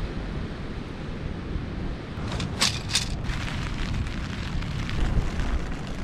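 Gale-force wind buffeting the microphone, a steady low rumble. About two and a half seconds in comes a short cluster of sharp crackling rustles, with fainter ones after.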